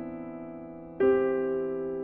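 Background music: piano chords, a new chord struck about a second in and left to fade.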